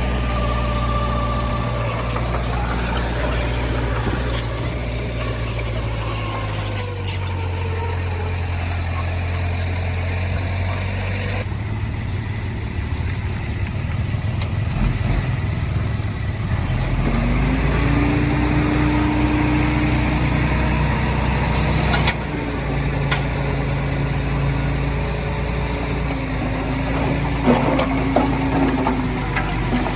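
Diesel engines of heavy earthmoving machinery running, the engine note drifting up and down with load. The sound changes abruptly twice, about a third and two-thirds of the way through.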